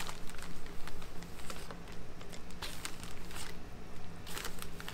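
Plastic zip-top bag crinkling as floured tortilla strips are pulled out and dropped into broth in a stainless pot, with scattered light rustles and taps from the spoon stirring them. A low steady hum runs underneath.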